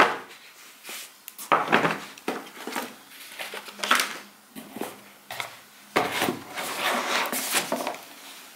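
Empty skincare bottles being picked up and put away: a few separate knocks and clinks, then a longer stretch of clattering and rustling from about six seconds in.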